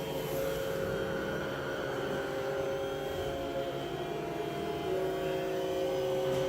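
Layered, sustained drone of many held tones, with a few of them shifting to new pitches about three and five seconds in.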